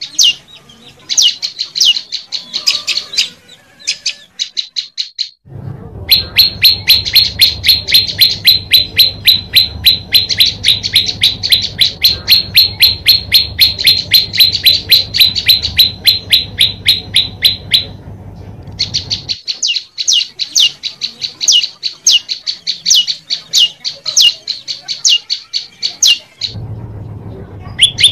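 Prenjak lumut (olive-backed tailorbird) calling in long runs of rapid, sharp, evenly repeated chip notes, about five a second, with short breaks between runs. A low hum sits under the longest run in the middle.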